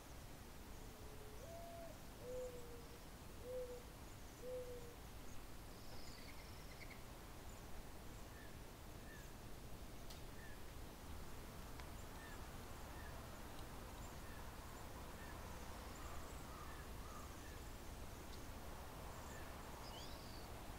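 A bird giving a short series of low coos: a first note that rises, then three lower coos about a second apart. Faint, high, thin calls from the cedar waxwing flock come and go.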